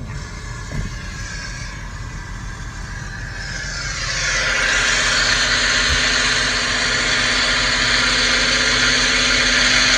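A car moving slowly, its engine and road rumble heard from inside the cabin. About four seconds in, a loud steady hiss rises and holds, with a steady hum under it.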